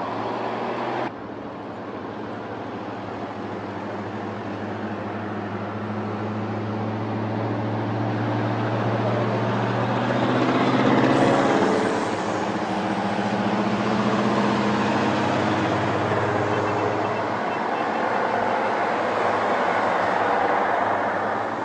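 A convoy of heavy army trucks driving past, engines running with a steady low drone and tyre and road noise; the sound swells as the nearest truck passes about eleven seconds in.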